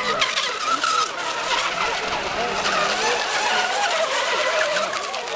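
Several electric RC racing hydroplanes running flat out, their motors whining at several wavering, shifting pitches over a hiss of spray.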